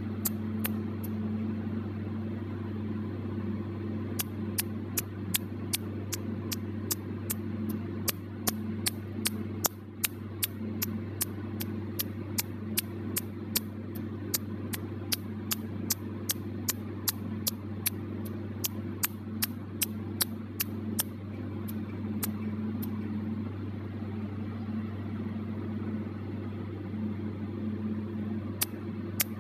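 Tattoo-removal laser firing on an eyebrow tattoo: a run of sharp snapping clicks, about two or three a second, one per pulse as the ink is shattered. The clicks pause for several seconds near the end, then start again. A steady low hum runs underneath.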